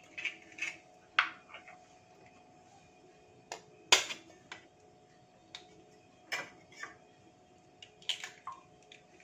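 A hen's egg is tapped against the rim of a glass bowl and broken open: scattered sharp clicks and taps of shell on glass, the loudest about four seconds in, with lighter shell-breaking clicks later.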